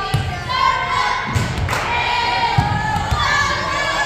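Girls' voices calling out and cheering in a gymnasium, over several low thuds on the wooden floor.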